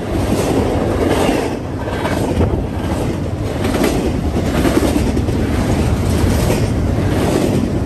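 A double-stack container freight train rolling past close by: a steady rumble of the well cars, with wheels clicking over the rail joints about twice a second.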